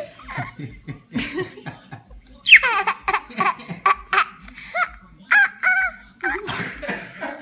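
Baby, nearly one year old, laughing in short repeated bursts, with a loud high squeal that falls in pitch about two and a half seconds in.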